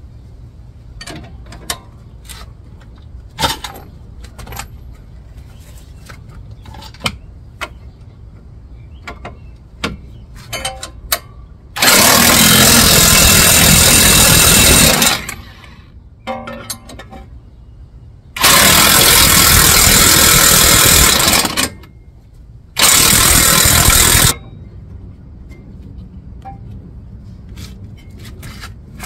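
Power impact wrench run in three loud bursts, the first two about three seconds each and the last about a second and a half, driving bolts at the steering knuckle. Light metallic clinks of hand tools come and go between the bursts.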